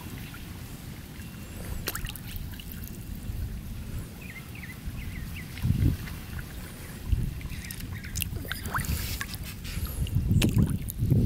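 Koi splashing and slurping at the water surface as they take pellets from a hand, with water sloshing around the hand. Louder splashes come about six and seven seconds in and again in a cluster near the end.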